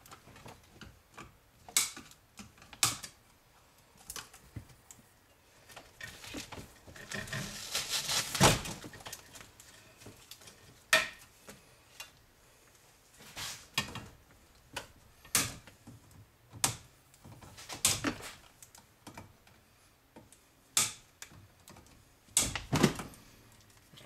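Wire cutters snipping through a dishwasher door's wiring and plastic clips, in irregular sharp clicks and snaps. Wires and plastic rustle and scrape for a stretch about seven to eight seconds in.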